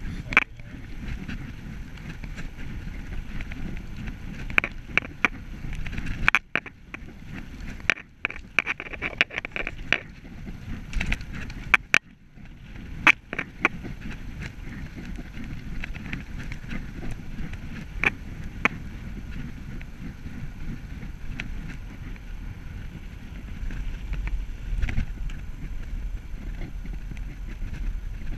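Road bike rolling along a tarmac path: steady wind buffeting on the microphone and tyre hiss, broken by scattered sharp clicks and knocks over the bumps.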